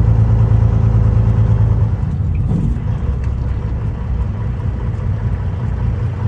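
Semi-truck diesel engine running while driving, heard from inside the cab as a steady low drone. About two seconds in the drone drops in pitch and gets a little quieter, as when the driver eases off the throttle.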